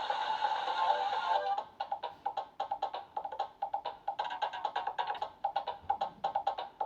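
Cartoon soundtrack music: a held chord, then from about a second and a half in, quick short notes repeating at about five a second.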